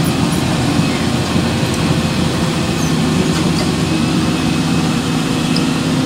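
An engine or motor running steadily: a low, unbroken drone.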